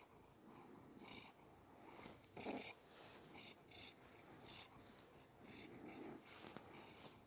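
A domestic tabby-and-white cat purring faintly with its mouth pressed against a man's forearm, with a few short soft noises at irregular moments, the loudest about two and a half seconds in.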